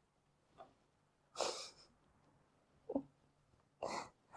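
A person's breath sounds: two short, sharp breaths about two and a half seconds apart, with a brief voice sound between them.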